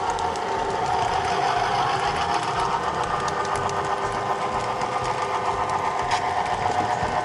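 HO-scale model train running along the track: the steady whir of the motor and gearing, with a fine regular rattle of the wheels on the rails, picked up close by a camera riding on the train.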